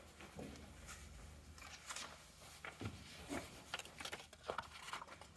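Faint, irregular rustling and tapping, a run of short scrapes and clicks like material being handled.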